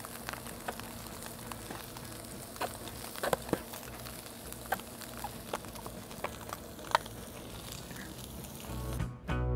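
Mayonnaise-coated ribeye steaks searing on a hot Camp Chef griddle: a steady sizzle with scattered sharp pops and spits. Guitar music cuts in near the end.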